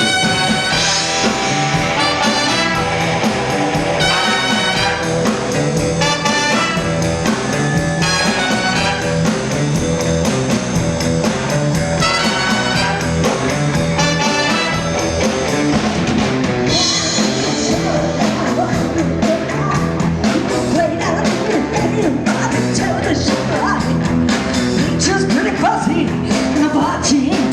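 Live rock band with a brass section playing an up-tempo tune at full volume, a punchy horn-like phrase repeating about every two seconds over bass and drums.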